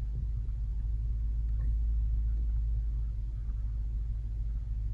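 2011 Land Rover LR4's 5.0 V8 idling cold as a low, steady rumble. Its intake cam variators are locked at zero after a P0341 bank 1 intake camshaft timing code has set.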